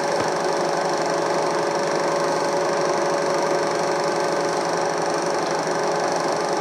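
Eiki NT2 16 mm film projector running: a steady whir with a fast, even mechanical clatter from the film transport, over a constant hiss.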